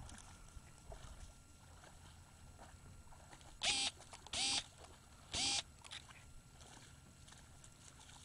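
A small dog, a Shih Tzu, barking three times in quick short yaps over low wind and water noise.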